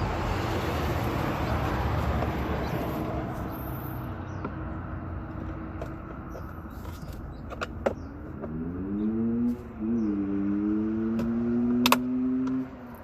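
Truck power window motor running for about four and a half seconds near the end: its hum rises in pitch as it starts, then holds steady and stops abruptly. A few light clicks come before it, after a steady rushing noise in the first few seconds.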